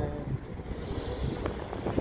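Sandstorm wind buffeting the phone's microphone: an uneven low rumble that rises and falls.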